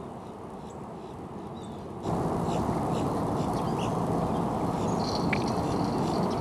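Steady outdoor background rumble that gets abruptly louder about two seconds in, with faint, short, high bird chirps over it and a thin high steady tone near the end.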